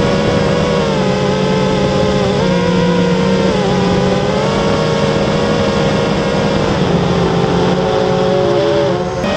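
Brushless motors and propellers of a Spedix Black Knight 210 racing quadcopter, heard from the onboard camera: a steady buzzing whine whose pitch wavers up and down with the throttle and sags lower shortly before the end.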